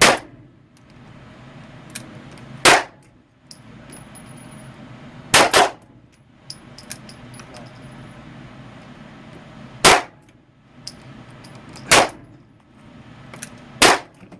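Handgun shots fired in an indoor range, each with a short echo: seven shots at uneven intervals, two of them in quick succession about five and a half seconds in.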